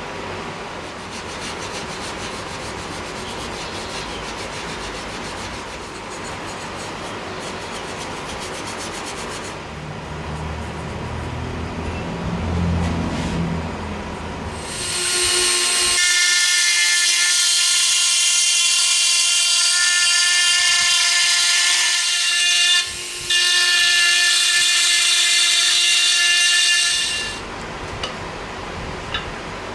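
A small electric power tool running steadily at high speed, with a high, even whine. It starts about halfway through, cuts out for a moment, and stops shortly before the end.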